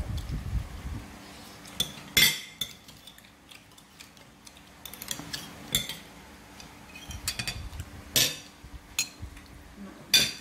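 Metal fork and spoon clinking and scraping against ceramic plates and bowls: a string of sharp clinks at uneven intervals, the loudest about two seconds in, at about eight seconds and near the end.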